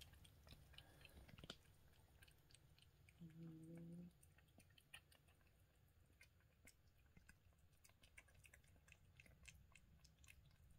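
Kittens eating from bowls: faint, quick chewing clicks throughout.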